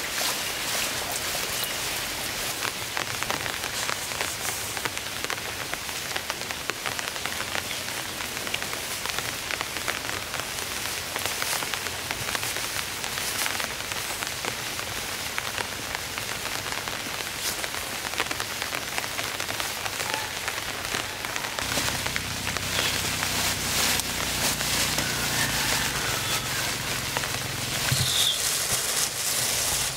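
Steady rain falling, a dense patter of drops. About two-thirds of the way through, a low steady hum comes in underneath, and a few short high chirps sound near the end.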